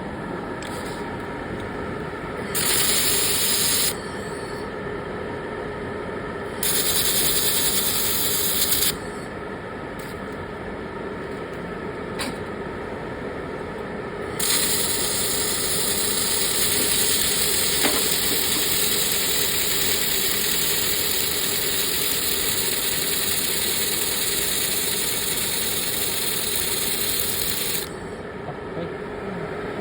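Laser welding on carbon steel: three stretches of loud hissing with a crackle, two of about one and a half to two seconds and a long one of about thirteen seconds starting about halfway, over the steady hum of the welding machine.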